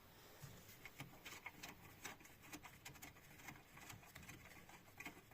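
Faint, irregular clicking of a hand wrench working a 10 mm bolt loose on a car's coolant expansion tank mounting.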